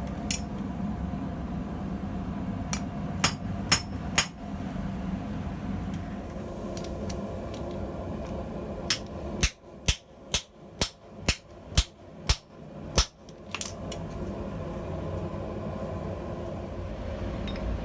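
Blacksmith's hammer striking steel on an anvil: a few scattered blows, then a run of about ten ringing blows at roughly two a second, over a steady low rumble.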